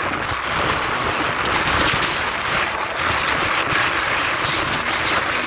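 Steady rush of wind and road noise in an open-top BMW convertible driving along with the roof down.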